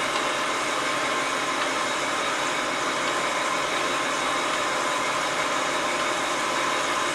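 Blanchard 18-36 vertical-spindle rotary surface grinder running steadily in automatic downfeed: its wheel spindle, rotating chuck and coolant pump give an even, unchanging hum and hiss with a few faint steady tones, very quiet running.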